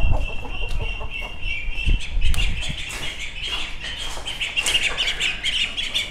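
Chickens clucking and chirping, with a busy run of short high notes that grows denser in the second half. Dull thumps come at the start and again about two seconds in.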